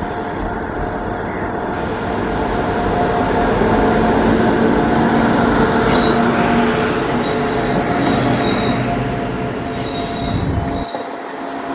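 WAP-7 electric locomotive and LHB coaches passing close by, a heavy rumble of wheels with a steady hum that grows loudest as the locomotive goes by. From about halfway, high thin wheel squeals come and go as the coaches pass. The low rumble drops away suddenly near the end.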